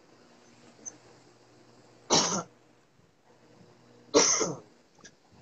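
A person coughing twice, two short harsh coughs about two seconds apart.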